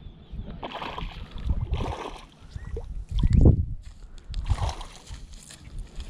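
Wind buffeting an action camera's microphone in irregular low rumbling gusts, the strongest about three and a half seconds in.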